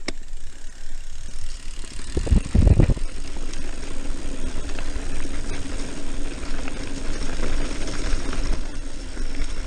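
Mountain bike rolling over a dirt singletrack, heard from a handlebar-mounted camera: a steady rumble and rattle of tyres and frame over the ground. A heavy low rumble comes about two seconds in, and from about three seconds on a steady hum runs under the rattle.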